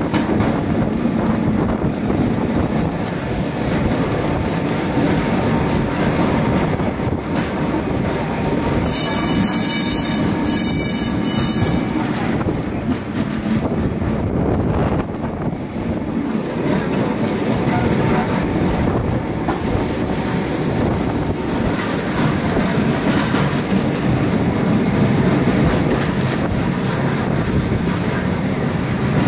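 Tram running along its rails with a steady rumble and wheel-on-rail noise. About nine seconds in, a high-pitched squeal rings out for roughly three seconds, broken briefly in the middle.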